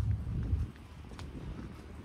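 Horse hooves clip-clopping: a few sharp knocks a little apart. They sit under a low rumble that cuts off suddenly just over half a second in.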